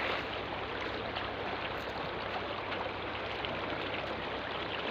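Steady rush of flowing water, an even hiss with no distinct events.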